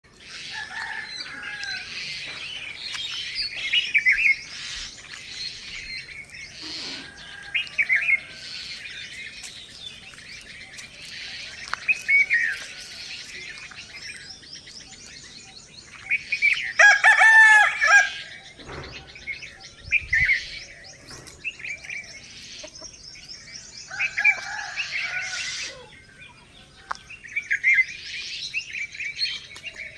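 Small birds chirping and twittering throughout, with a rooster crowing once, the loudest sound, about halfway through.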